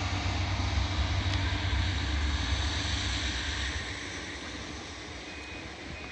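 A train passing with a loud, steady rumble that fades away over the last two seconds as it recedes.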